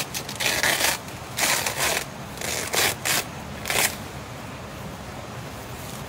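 A banana leaf being ripped apart by hand: several short tearing rasps in the first four seconds, then only a faint steady hiss.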